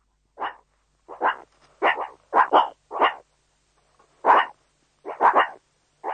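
Dog barking: a series of short, sharp barks at uneven intervals, some coming in quick pairs.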